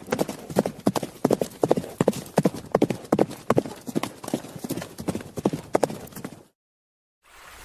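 Clip-clop of hoofbeats, a steady run of sharp knocks about three to four a second, which cuts off suddenly about six and a half seconds in.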